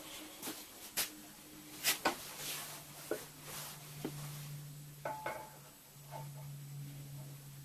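Steel parts being handled and set in a bench vise: a string of short metal knocks and clinks, one about five seconds in leaving a brief ring, over a steady low hum.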